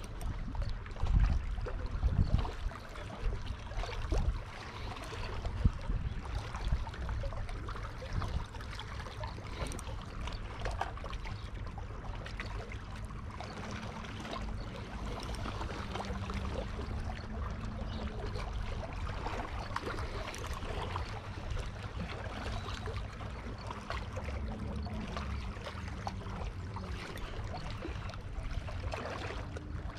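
Small waves lapping and splashing at the water's edge, with wind buffeting the microphone in heavy low thumps during the first few seconds. A faint steady low hum runs through the middle.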